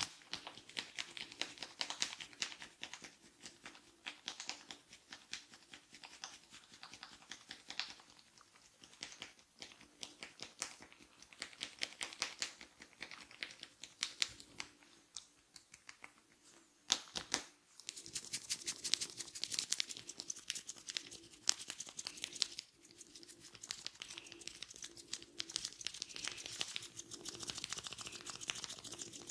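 Fingers rubbing and scratching through hair during a head massage: a crackling rustle of many small clicks, denser and more continuous in the last third.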